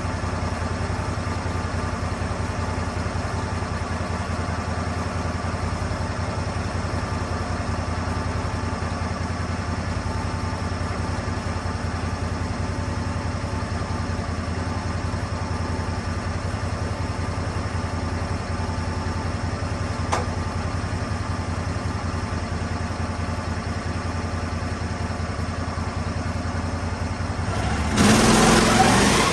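Lucas Mill 10-30 portable sawmill's engine idling steadily. Near the end it briefly grows much louder for about a second and a half.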